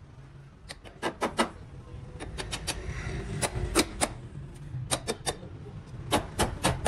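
Small hammer tapping on a steel strip and sill metal during rocker panel rust repair: a series of sharp, light taps in irregular clusters.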